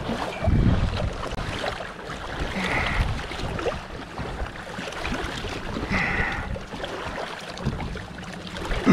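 Sea water sloshing and splashing against a boat's side, stirred by a sailfish held alongside in the water.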